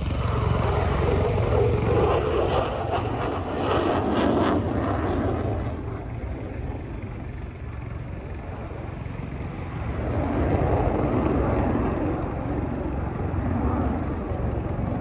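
Aircraft engine noise from a display aircraft manoeuvring in the sky, loud for the first few seconds, fading around the middle and swelling again later.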